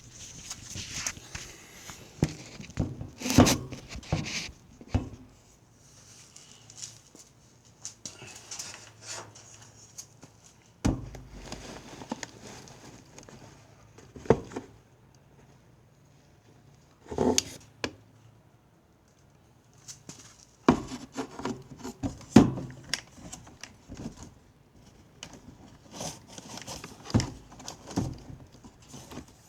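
Scattered clicks, knocks and rattles of hands and tools working on a furnace while the old igniter is taken out. A few sharper knocks stand out among quieter handling noise.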